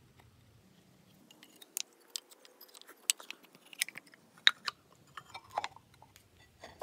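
Wooden strips of maple and cherry clicking and knocking against one another as they are pushed together by hand, a string of light, separate knocks with a few louder ones.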